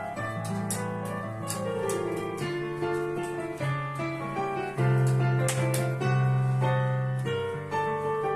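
Digital piano played with both hands: sustained bass notes under a melody, with a short descending run about two seconds in and a louder bass note near the middle.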